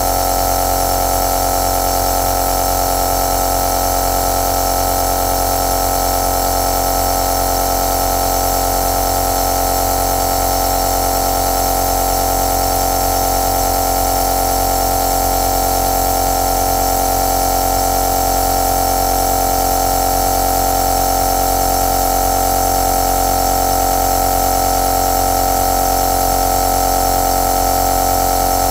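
Compressor nebulizer running steadily: a continuous motor hum with a strong mid-pitched tone, over an even hiss of air through the nebulizer cup and mask.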